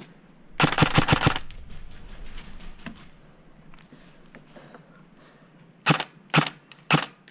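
Airsoft gun firing: a quick burst of about half a dozen shots about a second in, then single shots roughly half a second apart near the end.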